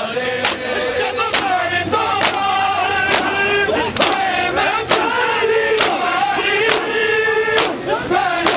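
Men's voices chanting a Shia mourning lament (noha) together, with the crowd's hands slapping their bare chests in unison, sharp slaps about once a second, keeping the beat.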